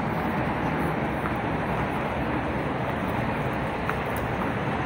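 Steady road traffic noise from a busy city road, a constant hum of passing vehicles.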